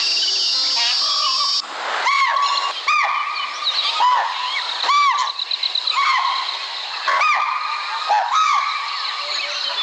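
Chital (spotted deer) alarm calls: short, shrill, arching barks from several deer, repeated about once a second. This is the deer's warning of a predator nearby.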